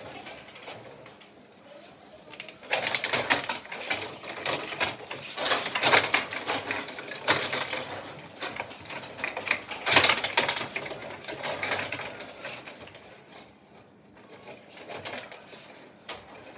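Rod table hockey game in play: rapid clattering and knocking of the rods, plastic players and puck in the wooden table, coming in bursts with short lulls. The loudest knocks come about six and ten seconds in.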